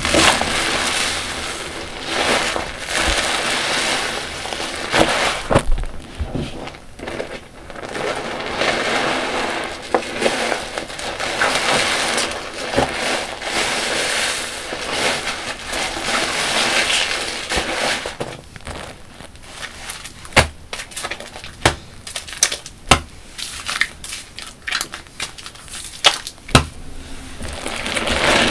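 Soapy car wash sponges squeezed and released in sudsy water: repeated wet squelching swells with crackling foam. About two-thirds of the way in, the sound turns to many sharp little clicks and pops.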